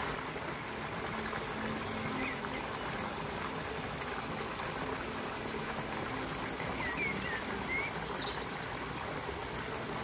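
Steady rush of running water, stream- or waterfall-like, with a few short faint high chirps about two seconds in and again around seven to eight seconds in.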